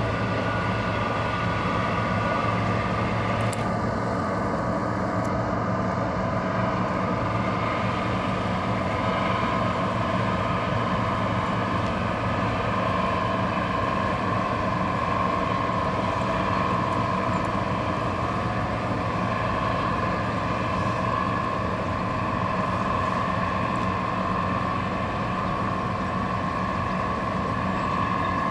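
Tugboat's diesel engine droning steadily as it pushes a barge, with a hum that holds the same pitch throughout.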